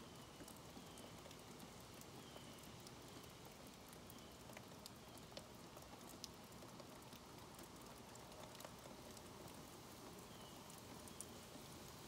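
Near silence: faint outdoor quiet with a few scattered soft ticks, and a faint high chirp repeated about once a second near the start and again near the end.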